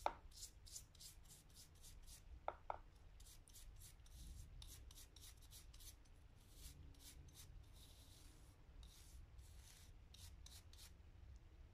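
Stiff-bristled scrub brush scrubbing a rusty hand-plane part under liquid: faint, quick brushing strokes in runs. Sharp clicks come right at the start and twice about two and a half seconds in.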